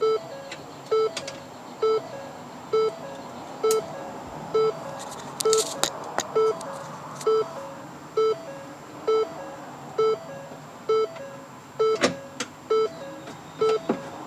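A car's warning chime beeping steadily about once a second, the door-ajar warning of a 2013 Ford Escape whose newly connected door latch senses the door open. A few light clicks and knocks of parts being handled, with a short scrape about halfway through.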